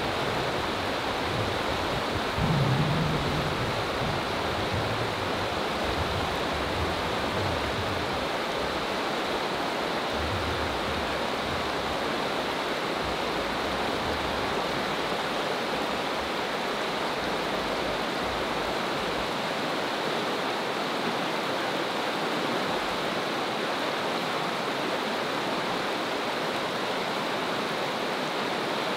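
Steady rush of a fast, shallow creek running over rocky riffles, with a brief low rumble about two and a half seconds in.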